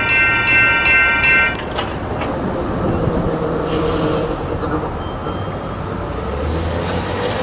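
Railroad grade-crossing warning bell ringing in rapid repeated strokes, stopping about one and a half seconds in as the crossing gates begin to rise. A steady low rumble continues after it.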